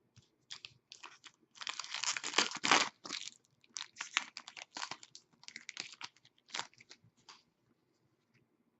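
Trading card pack's foil wrapper crinkling and tearing open, densest between about a second and a half and three seconds in, followed by lighter scattered rustles and clicks of the cards being handled.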